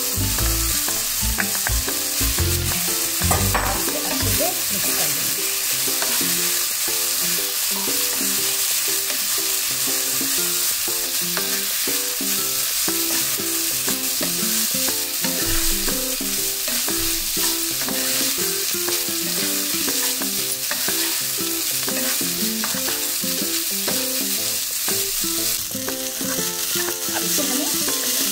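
Boiled rice and chopped vegetables sizzling steadily in hot oil in a non-stick kadai, being stir-fried into veg fried rice. A wooden spatula turns and scrapes them against the pan, adding light scrapes and taps.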